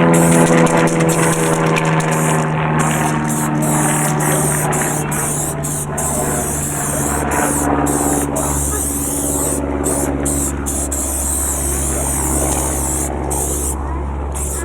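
Aerosol spray paint hissing in long bursts with short breaks as the nozzle is pressed and released, over a steady low engine drone that dips slightly in pitch at first and slowly fades.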